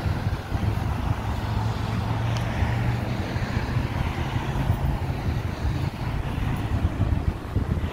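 Road traffic passing on a city street: a continuous low rumble of car engines and tyres, with one vehicle's steady low engine hum standing out for a few seconds in the middle.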